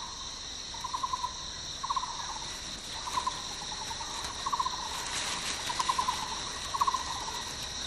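Forest ambience: insects shrilling steadily on two high tones, with a short trilled call repeated about once a second.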